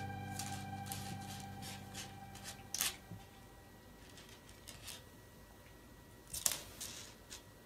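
Soft guitar background music fading out over the first few seconds, then a faint gap broken by scattered light clicks and taps.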